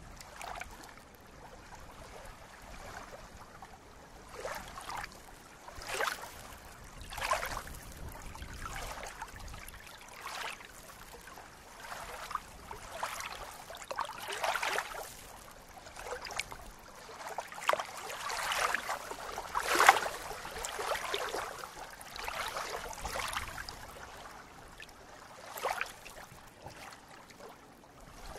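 Small ripples of water lapping in the shallows at a reedy shore, a soft irregular splash every second or so, loudest about two-thirds of the way through.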